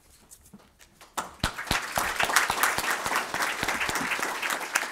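A seated audience applauding, the clapping starting about a second in after a moment of quiet and then going on steadily.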